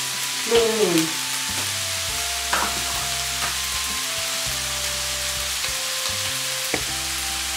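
Sliced bell peppers and onions sizzling in a frying pan, a steady frying hiss with two light clicks, over background music of held notes.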